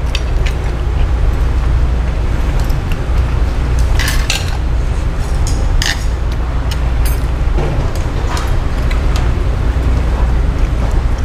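A steady low rumble with a hiss over it, and a few sharp clinks of tableware scattered through.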